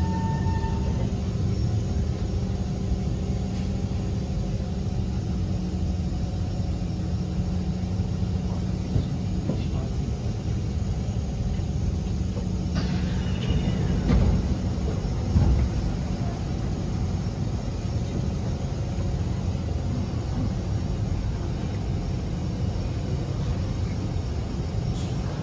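Cabin sound of a Kawasaki C151 metro train running on its line: a steady low rumble of wheels on the track with a steady motor hum. About halfway through, a short falling whine and a couple of louder knocks come over the rumble.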